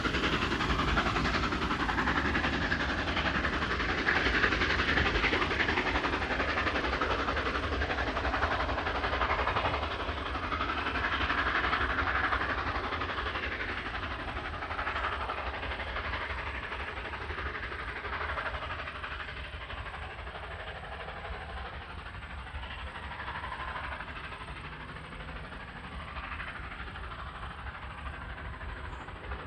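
Steam-hauled passenger train behind NSWGR 59 class 2-8-2 locomotive No. 5917 rolling away down the line, the clatter of its carriage wheels on the rails fading steadily as it recedes.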